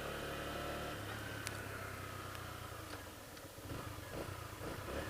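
Honda CG125's single-cylinder four-stroke engine idling with a faint, steady low hum that steps up slightly in pitch about a second in and thins out after about three and a half seconds.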